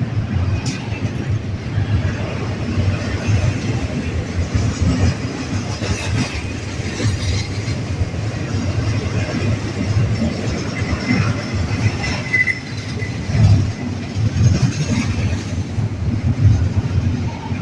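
Freight train cars rolling past with a continuous low rumble, and a brief high wheel squeal about twelve seconds in.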